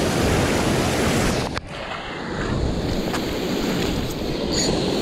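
Sea surf washing over a rocky shore, with wind buffeting the microphone. The sound drops off suddenly about one and a half seconds in and then carries on a little quieter.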